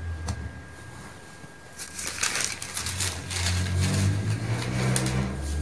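Newspaper pages rustling and crinkling as they are picked up and unfolded, starting about two seconds in and growing more frequent, over a low steady hum.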